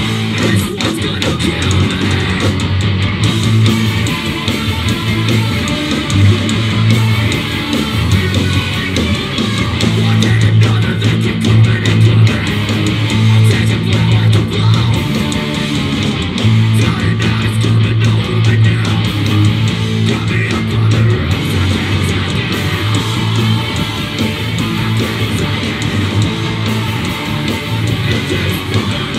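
Loud live heavy rock band playing: distorted electric guitars, bass guitar and drums, with the vocalist screaming over them.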